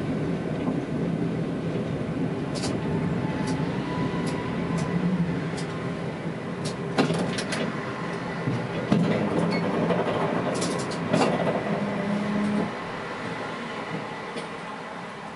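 Tatra T3S tram heard from the driver's cab: a steady electrical and mechanical hum with scattered sharp clicks and knocks. The hum drops quieter about twelve and a half seconds in, while the tram stands still.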